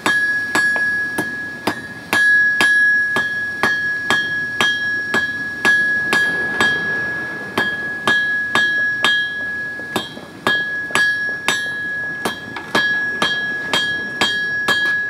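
Hand hammer striking a hot steel bar on an anvil to forge it, in a steady rhythm of about two to three blows a second. Each blow leaves the anvil ringing with a clear, high tone that carries on between strikes.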